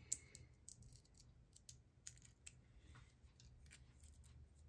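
Near silence with faint, scattered clicks and rustles of small paper pieces being handled on a craft mat; the sharpest click comes just after the start.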